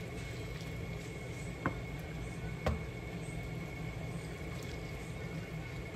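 Sliced beef, onion and green pepper sizzling in a frying pan as they are stirred with a wooden spatula, over a steady low hum. The spatula knocks lightly against the pan twice, about a second apart, near the middle.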